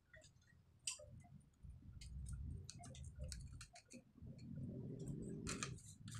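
Faint, irregular small plastic clicks and rubbing as a threaded plastic fitting is turned by hand into a ceramic toilet cistern, with low handling noise underneath.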